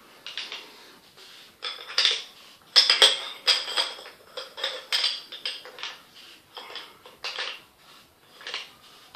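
Small hard parts of a rocket motor kit clinking and clattering together as they are handled, in an irregular run of sharp clicks, loudest about three seconds in.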